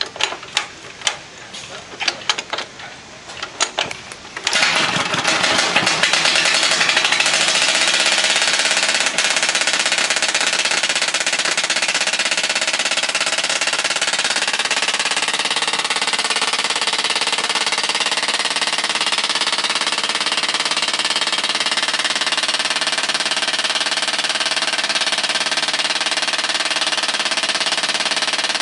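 Vintage Caterpillar D13000 diesel engine and the sawmill it drives, running: irregular sharp knocks at first, then about four and a half seconds in the sound jumps to a much louder, steady mechanical run.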